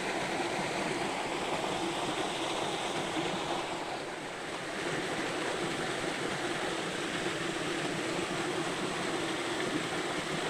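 Steady rush of flowing river water, dipping slightly about four seconds in.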